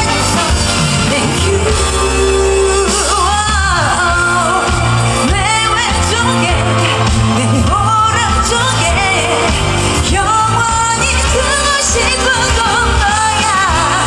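A female pop singer singing live into a handheld microphone, her held notes wavering, over amplified backing music with a strong steady bass.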